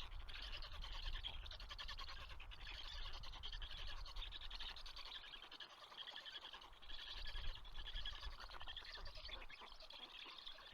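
Baby birds in a nest begging for food: a continuous chorus of rapid, high-pitched chirping that swells and fades about once a second.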